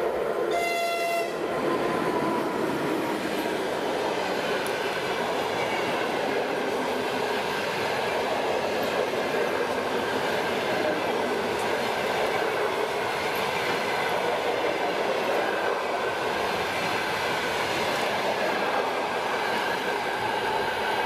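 ChS2T electric locomotive sounds a short horn blast lasting about a second just after the start. Its passenger coaches then run past at speed, making a steady, loud rush of wheels on rails.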